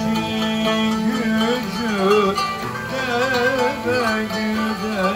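Live Turkish Sufi devotional music, an ilahi instrumental passage: a plucked string instrument over a steady held low note, with a wavering melody line full of vibrato.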